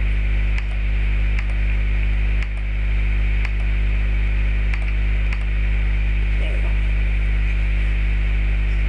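Loud steady electrical mains hum with hiss from an old recording microphone, with a handful of sharp mouse clicks spread through the first half.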